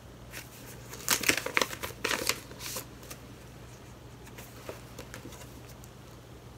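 Paper envelope being opened and a greeting card drawn out: a couple of seconds of crisp paper rustling and crinkling starting about a second in, then only faint paper-handling ticks.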